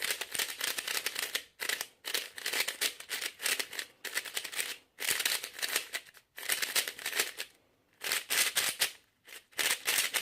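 New GuoGuan Yuexiao 3x3 speedcube being turned quickly by hand: fast runs of plastic clicking and clacking turns in bursts of a second or two with short pauses between. The cube is new and not yet broken in, its turning 'pretty sandy' out of the box.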